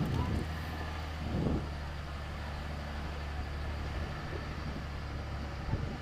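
Vehicle engine running at low speed with a steady low hum as the vehicle drives a rough dirt track, with a few thumps as it jolts over the ground.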